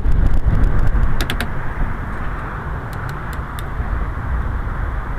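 Quest velomobile rolling along a street: steady low rumble of wind and road noise on the body-mounted microphone, with a few sharp clicks about a second in and again around three seconds in.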